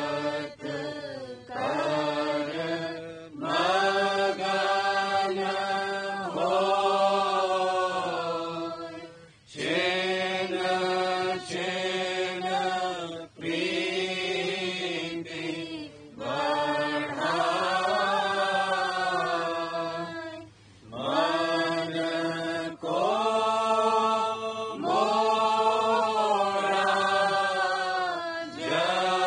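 Devotional shabd (hymn) of the Radhasoami tradition chanted in Hindi, sung in long held phrases a few seconds each with brief pauses between, over a steady low drone.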